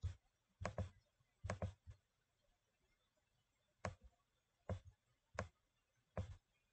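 Computer mouse clicking: about ten short, sharp clicks at irregular intervals, some coming in quick pairs.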